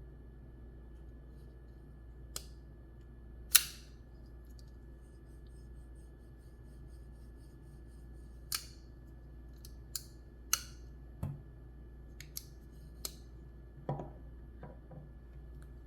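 Titanium frame-lock folding knife (the Bestech-made Matsey Basilisk) being worked open and shut by hand: about ten sharp metallic clicks of the blade swinging out, locking and snapping closed, spaced irregularly. The loudest comes about three and a half seconds in, with a short ring.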